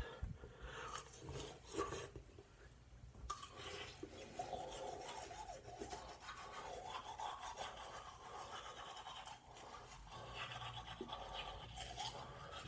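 Toothbrush scrubbing teeth: a steady, rapid rasping of bristles, fairly faint.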